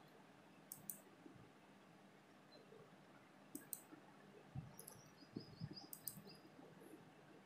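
Computer mouse button clicks, faint over near-silent room tone: four quick press-and-release double clicks. Between them come a few faint low knocks.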